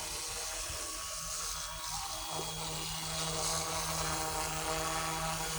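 Small electric RC helicopter, an RC ERA Huey UH-1D, buzzing steadily in flight. A stronger steady hum sets in a little over two seconds in, over a high hiss of wind on the microphone.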